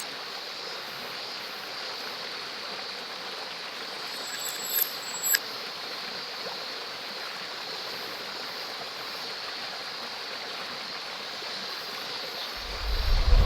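Steady rushing of a mountain stream and waterfall, an even wash of water noise. A loud deep rumble rises about a second before the end.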